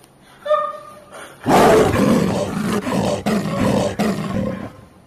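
A big cat's roar, likely a tiger roar sound effect, starting suddenly about a second and a half in and cutting off abruptly near the end. A brief pitched call comes before it.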